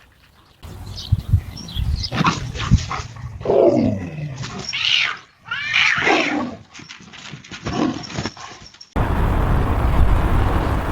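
Animal growls and yowling cries, several of them falling steeply in pitch, with hissing between them, in a synthetic cat-versus-tiger fight. About nine seconds in, the sound cuts abruptly to a steady rushing noise.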